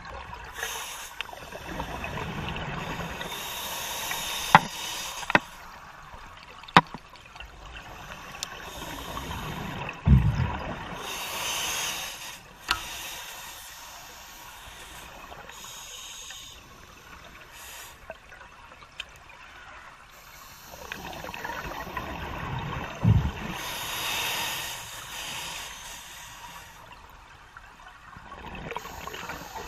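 Scuba diver breathing underwater through a regulator, heard through the camera housing. Slow breath cycles go by: long swells of hiss, and a low rumble of exhaled bubbles about ten seconds in and again near 23 seconds. A few sharp clicks come between about four and seven seconds.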